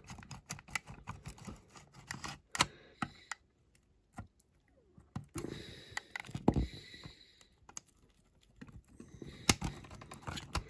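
Irregular small clicks and scrapes of a flat-bladed screwdriver working against the baseplate of a die-cast toy car, with a short quiet pause in the middle and one sharper click near the end.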